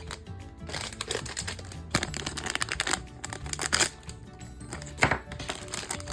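Crinkling and tearing of a plastic blind-bag packet as it is opened by hand, in bursts of rustling crackle. Background music plays underneath.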